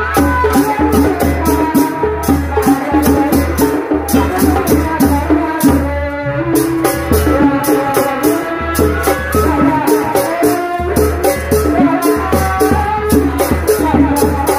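Loud Sundanese tanji band music: a fast, even drum and percussion beat over a heavy booming bass, with a melody line on top. The high percussion drops out briefly about six seconds in.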